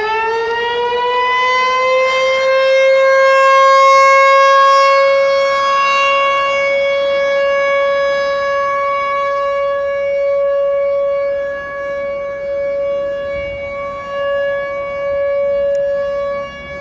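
American Signal T-128 outdoor warning siren sounding a test, loud. It finishes winding up in pitch over the first two seconds and then holds one steady wail, swelling and fading in loudness as its rotating horn turns away and back.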